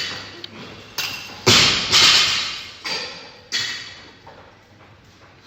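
A run of five or six heavy thuds in the first four seconds, each trailing off in a long echo. They sound like workout equipment striking the floor of an echoing gym during a timed workout.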